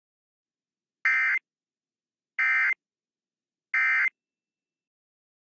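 Three short bursts of EAS SAME digital data tones, the End of Message code, each a harsh electronic warble under half a second long, sent about a second and a third apart. They mark the end of the emergency alert broadcast.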